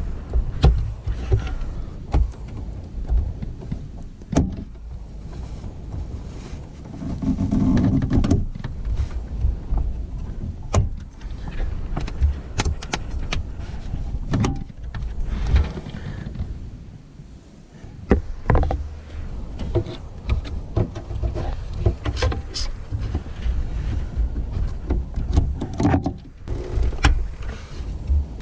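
Hands fumbling with a G.Skill memory stick and pressing it into a motherboard slot inside a desktop PC case: close rubbing and handling noise with scattered plastic clicks and knocks as the module is fitted and seated.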